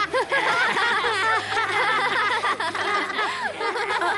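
A classroom of children laughing and giggling together, many voices overlapping, dying down near the end.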